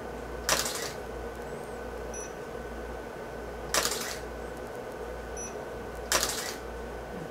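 Camera shutter firing three times, about three seconds apart, each a short sharp snap, over a steady faint electrical hum.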